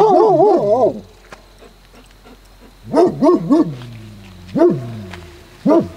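Dogs barking in alert at something unseen: a quick run of wavering, yodel-like barks in the first second, then three quick barks about three seconds in and two single barks near the end.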